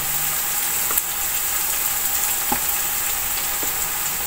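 Tomato-and-onion masala frying in hot ghee in a large aluminium pot: a steady sizzle, with a few faint ticks.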